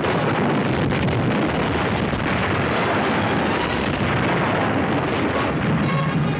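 Battle noise on an old, band-limited film soundtrack: explosions and gunfire blended into one dense, continuous din, with a single sharp crack about a second in.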